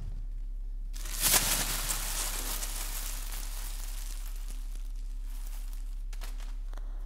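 A sudden burst of crackling, rustling noise about a second in that fades away over the next two to three seconds, with a few faint clicks near the end, over a steady electrical hum.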